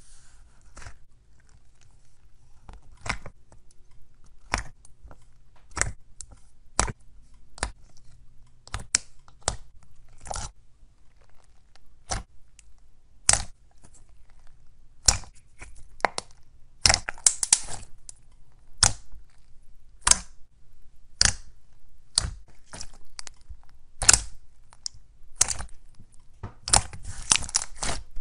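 Thick white and yellow slime pressed, poked and stretched by hand, giving sharp pops and clicks about once a second, with quick runs of crackling about two-thirds of the way through and again near the end.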